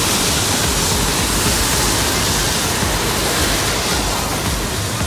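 Steady hiss of passing cars' tyres on a wet road, with the low rumble of traffic beneath it.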